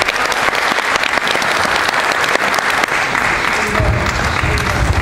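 Audience applauding steadily. From a little past three and a half seconds in, low thuds join it as several performers run across the mats.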